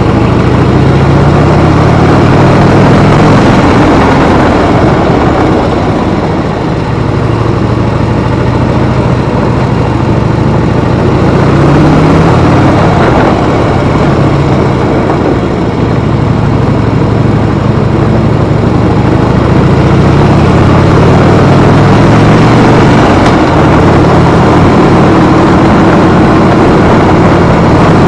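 Harley-Davidson V-twin motorcycle engine running on the move. Its pitch climbs and drops several times as it accelerates and changes gear, under a steady rush of wind.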